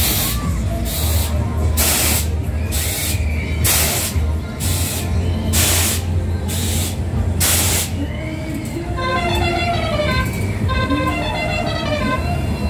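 Funfair spinning ride: short hissing whooshes about once a second over a steady low rumble. After about eight seconds they give way to fairground music.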